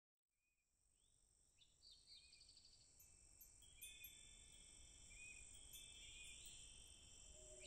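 Faint nature ambience fading in from silence: a steady high insect drone, like crickets, with birds chirping short rising and falling calls and quick trills over it.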